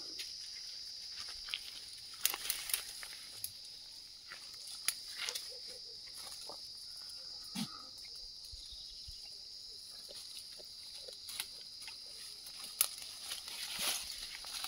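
Insects chirring steadily in a high, even pitch, with goats browsing in the shrubs close by: irregular crackles and snaps of leaves and stems being pulled and torn, denser and louder near the end as a goat feeds right beside the microphone.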